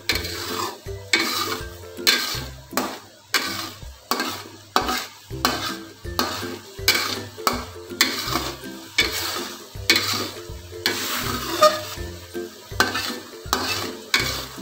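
Metal spatula scraping and stirring a thickening soy-sauce yakitori glaze as it bubbles and sizzles in a metal wok, in strokes of about one or two a second. The sauce is being boiled down until it thickens.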